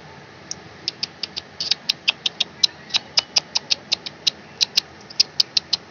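A quick, uneven series of light, sharp clicks, about four or five a second, beginning about half a second in.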